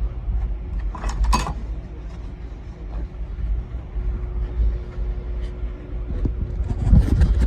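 Bridgeport milling machine running with a steady hum and low rumble, set up to cut down a cylinder head's valve-guide boss. Sharp metallic clatter comes about a second in, and a heavier knock comes near the end.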